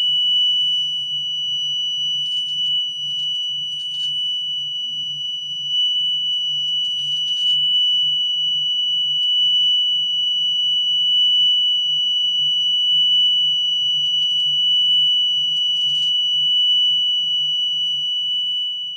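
A steady 3,000-hertz test tone played from a wow-and-flutter test record on a turntable, holding one pitch with no audible wavering: the turntable is turning evenly. A faint low rumble runs underneath, and a few faint clicks of surface noise come through.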